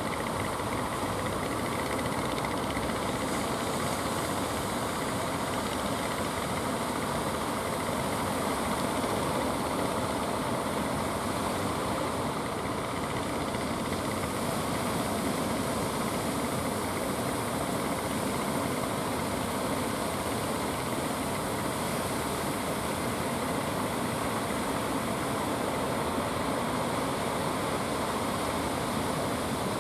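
Steady roar of ocean surf breaking at the river mouth, an even wash of noise with no separate events.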